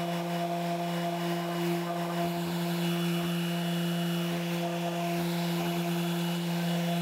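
Random orbit sander running with a steady hum, lightly sanding a black-dyed quilted maple guitar top with 320-grit paper to bring the figure back out.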